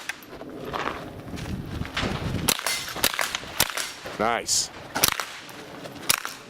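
Shots from a Smith & Wesson M&P 15-22 .22 LR rifle: about four sharp cracks spaced roughly a second apart, fired from cover. Shuffling movement comes before the first shot.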